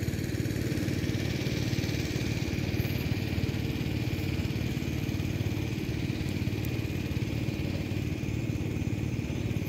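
A small engine running steadily at an even speed, a low hum that does not change in pitch.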